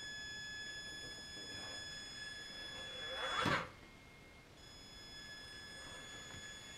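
Traxxas Summit RC truck's electric motor and drivetrain whining steadily at a crawl, with a short rising whine about three and a half seconds in as it powers its front wheels up onto a pile of firewood.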